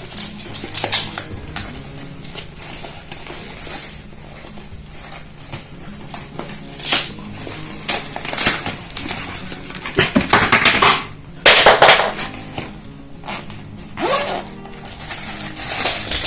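Plastic packaging and small baby-care items being handled and unwrapped: irregular clicks and clatter, with several louder crinkling rustles, the loudest about ten to twelve seconds in.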